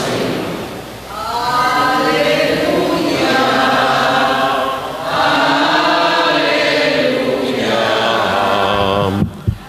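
Slow liturgical chant sung in long, held, wavering phrases, two main phrases with a short breath between them and a brief break near the end.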